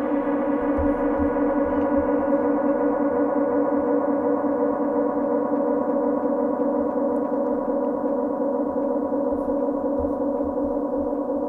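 Synthesizer chord held as an endless drone by a delay (Ableton's Echo) set to 100% feedback: a steady, layered sustained tone whose upper notes slowly grow duller.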